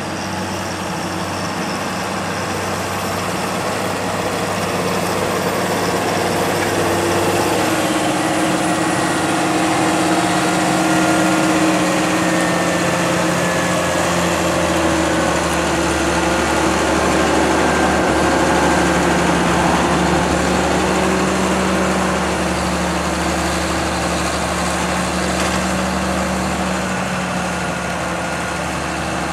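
John Deere 7930 tractor's six-cylinder diesel engine running steadily, growing louder over the first ten seconds or so as the tractor comes closer.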